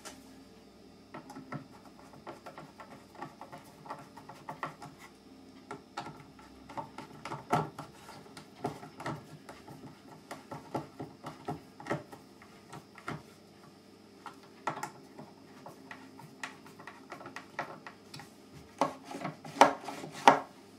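Hand screwdriver driving a small screw into a wooden part: a run of small, irregular clicks and creaks, with a few louder knocks near the end.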